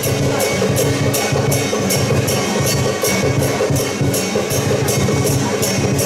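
Temple procession music: sustained pitched notes over a steady metallic percussion beat, about three strikes a second.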